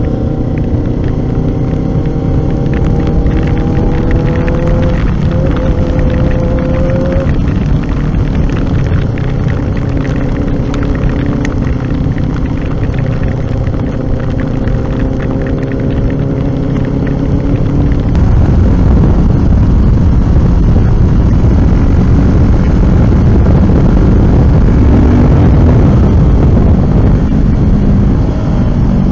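Kawasaki Ninja 400's parallel-twin engine running under way, its pitch rising a little in the first few seconds, over steady wind rush and the hiss of tyres on wet asphalt. About 18 seconds in, the wind rush grows louder and covers most of the engine note.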